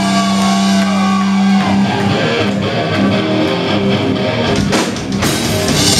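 Heavy metal band playing live through amplifiers. A distorted electric guitar holds a note whose higher tones bend and glide. About a second and a half in, the guitars, bass and drums break into a dense, fast riff, with sharp drum hits near the end.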